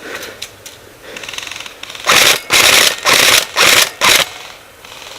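Airsoft electric gun, a Tokio Marui SCAR-L, firing five short bursts of rapid full-auto shots, starting about two seconds in.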